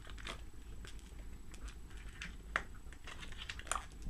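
Scattered light clicks and taps of small plastic toy parts and packaging being handled, the sharpest a little past halfway and another near the end.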